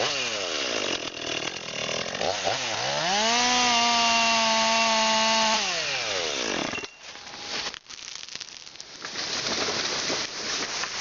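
Two-stroke chainsaw revving: its pitch falls back, then climbs about two and a half seconds in and holds at high speed for about two seconds before dropping again. After a brief lull near the end it gives way to a rough, noisy rasp.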